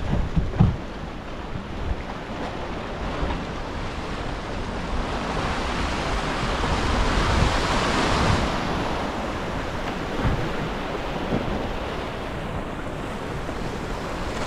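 Sea waves washing in, the surf swelling to a peak about eight seconds in and then easing, with wind buffeting the microphone.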